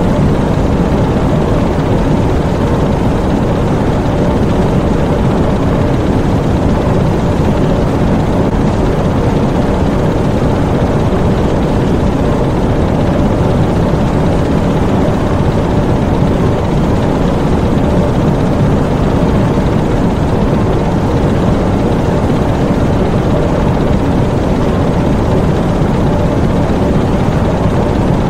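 Diesel engines of a U-boat engine room running steadily: a loud, even rumble with faint steady tones mixed in.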